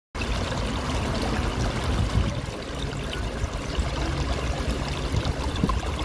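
Water pouring steadily from several small spouts under concrete slabs into a shallow pool, a continuous splashing and gurgling.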